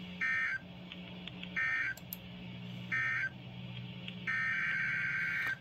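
Emergency Alert System SAME data bursts, a warbling digital screech: three short end-of-message bursts about 1.3 s apart close the first severe thunderstorm warning, then a little over four seconds in a longer burst starts the header of the next alert. A faint steady low hum runs underneath.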